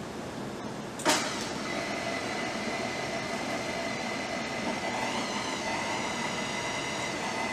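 Waring heavy-duty variable-speed blender starting up with a sudden loud burst about a second in, then running steadily with a whine as it blends Caesar dressing ingredients in its stainless steel jar. Its sound shifts about five seconds in as the speed dial is turned.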